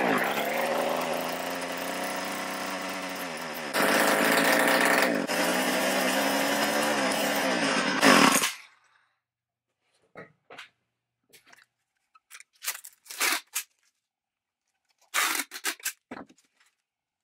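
The small two-stroke engine of an Ohlsson and Rice Drillgine gas-powered hand drill running, its pitch wavering, louder from about four seconds in, then stopping about eight seconds in. The owner says a damaged carburetor part leaves it running with less power and only for short periods. A few light knocks and taps follow.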